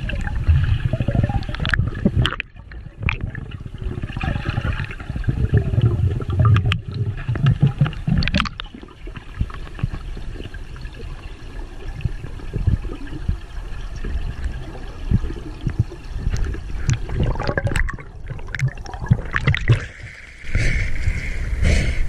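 River water heard underwater through an action camera's housing: a muffled low rush with gurgling bubbles and scattered small clicks. About two seconds before the end it turns louder and brighter as the camera comes up to the surface into splashing water.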